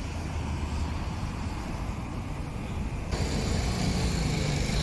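Street traffic with a Bentley Flying Spur driving slowly past on a wet road: a steady low rumble of engines and tyres. It turns suddenly louder and hissier about three seconds in.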